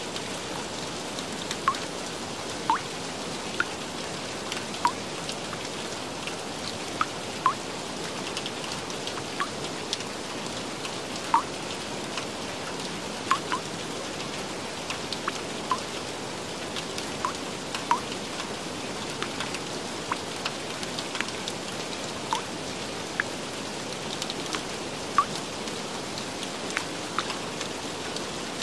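Steady rain hiss with single raindrops plinking clearly above it, about one a second.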